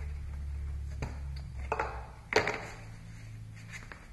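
Rustling and knocking from hands and a rag working around the oil filter area, with one sharp knock a little past halfway, over a steady low hum.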